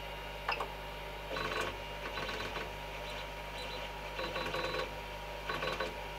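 Creality CR-10S 3D printer's Y-axis stepper motor whining in a series of short moves, starting and stopping several times after a click, as the print bed is jogged back and forth. The Y-axis belt is too loose: the bed moves fine backwards but not coming forward.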